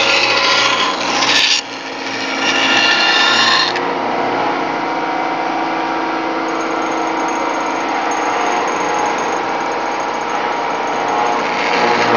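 Band saw cutting a thick wooden block along a curved line, with a rasping sound under load. About four seconds in the cut stops and the saw runs free with a steady hum, then the blade bites into the wood again near the end.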